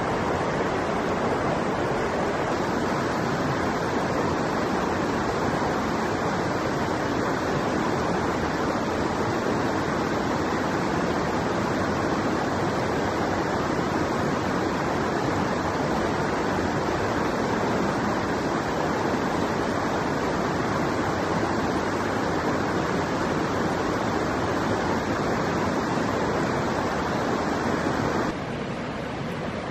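A river rushing steadily, an even noise of running water that drops to a quieter level near the end.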